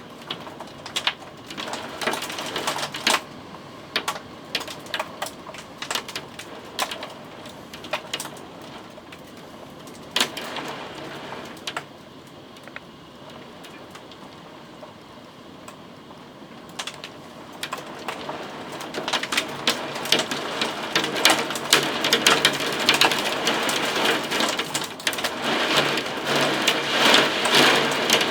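Thunderstorm rain falling, with scattered sharp taps of drops striking a hard surface; about two-thirds of the way in the downpour grows heavier and louder, the taps coming thick and fast.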